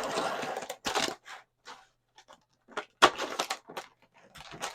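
Plastic and cardboard action-figure packaging being worked open by hand: crackling and rustling with sharp clicks. It comes in bursts, with a quiet gap of about two seconds in the middle and a few scattered clicks near the end.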